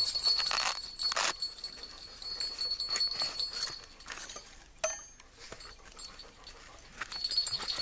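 Rustling of a fabric pouch and light clinks of thin stainless plates as a folding camping stove is slid out and handled, with one sharper metallic click just before five seconds in.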